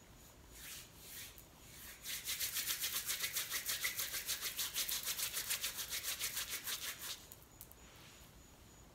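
Palms rubbing fast back and forth around the frayed end of a crochet faux loc, a rhythmic hiss of skin on hair at about seven strokes a second from about two seconds in until about seven seconds in, after a couple of softer swishes. The friction rolls the loose, coming-apart end back into a sealed loc.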